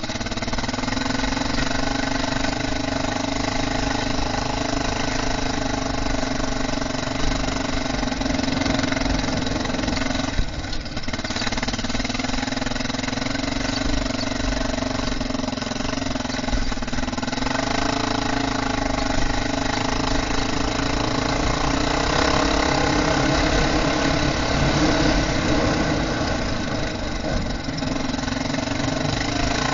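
Honda NX650 Dominator's single-cylinder four-stroke engine running steadily, briefly dropping off about ten and a half seconds in before picking up again.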